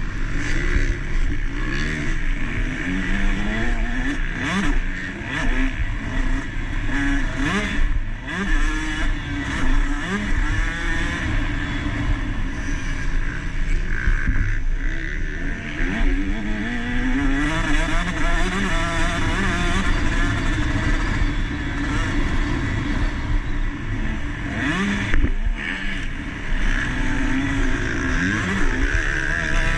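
Motocross bikes racing, several engines at once, revving hard and repeatedly climbing and falling in pitch as the riders work the throttle and shift gears.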